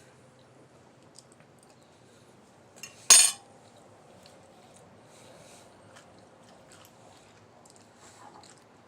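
Cutlery clinking against dishes during a meal, with faint scattered clicks and one loud clank about three seconds in that rings briefly.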